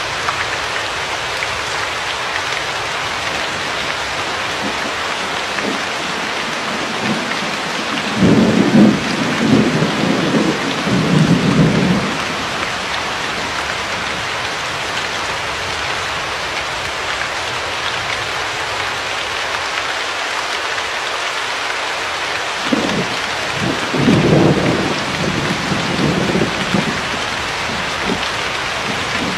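Steady rain, an even hiss. Low rolls of thunder rumble twice for a few seconds, about a quarter of the way in and again past two-thirds.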